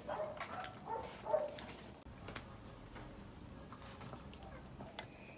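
Quiet eating at the table: a few light clinks of ladle, spoons and chopsticks against the soup pot and bowls, with brief soft vocal sounds in the first second or so, over a faint steady hiss.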